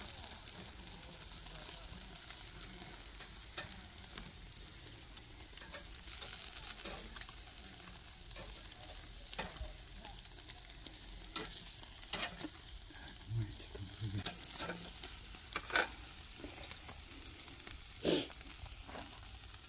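Sausages and burger patties sizzling faintly on a charcoal grill, a steady soft hiss broken by a dozen or so sharp clicks and pops, a few of them louder near the end.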